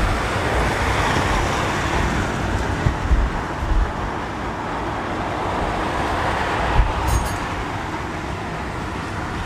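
Wind buffeting the microphone over the engine and road rumble of a moving open-sided passenger vehicle, with a few brief low thumps from the ride about three seconds in and again near seven seconds.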